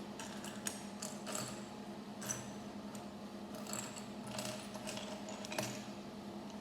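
Plastic LEGO bricks being handled and pressed together: a series of small clicks and rattles, the sharpest about two-thirds of a second, two and a quarter seconds and five and a half seconds in, over a steady low background hum.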